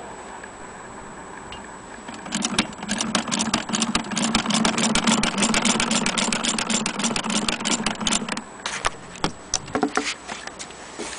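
Antique 1890s Jones hand-crank sewing machine running: its needle mechanism clicks rapidly over a steady whir, starting about two seconds in and stopping after about six seconds. A few scattered knocks follow.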